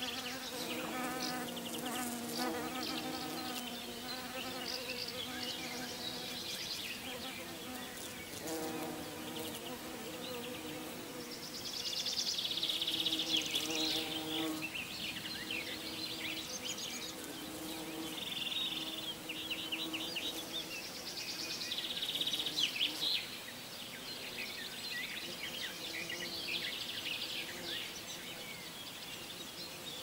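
Flying insects buzzing close by, a humming drone that fades in and out over several seconds at a time. Short high chirping trills come in now and then, the loudest of them just before halfway and again past two-thirds of the way through.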